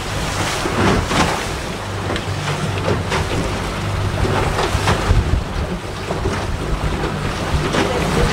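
Outboard motor running steadily as the boat moves under way, with wind buffeting the microphone and water rushing and slapping past the hull in irregular gusts.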